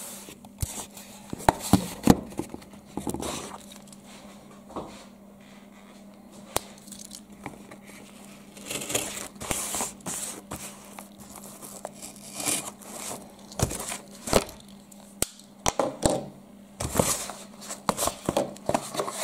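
Cardboard parcel being opened and handled by hand: irregular tearing, scraping and crinkling of cardboard and paper, with scattered sharp knocks and clicks as the box is moved on the table.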